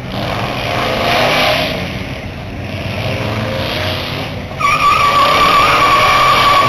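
A car engine revving as a Ford Mustang pulls away, its pitch rising and falling. About four and a half seconds in, a loud, steady high-pitched squeal starts and holds.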